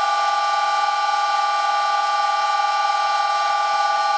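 Electric motor running at a constant high speed, giving a steady high-pitched whine.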